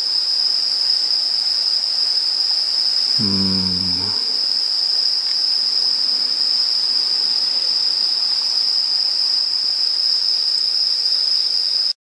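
Insects singing in a loud, steady, high-pitched continuous chorus. A short hummed voice sound comes about three seconds in, and everything cuts off suddenly just before the end.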